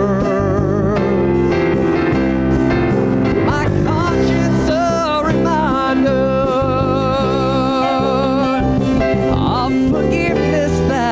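Live worship band music: keyboard, acoustic guitar, congas and drums playing under a singer who holds long, wavering notes.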